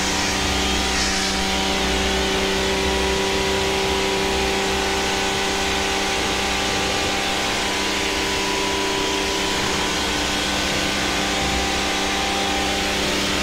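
Kärcher pressure washer running steadily, its motor and pump humming under the hiss of the foam spray lance as it sprays.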